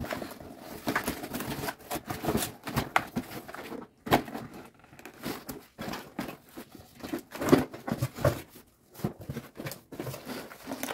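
Cardboard toy box and its packaging being handled and opened: irregular crinkling, tearing and short knocks.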